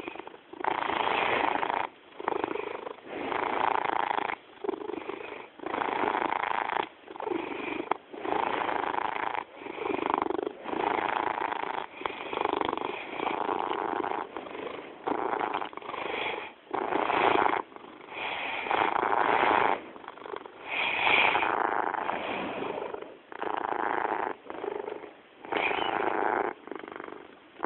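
Domestic cat purring steadily, pulsing with each breath in and out at about one cycle a second.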